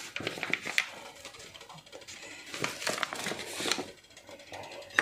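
Rustling and crackling of a bag of corn flour being handled, with many light clicks, in two spells: about the first second, and again from about two and a half to nearly four seconds in.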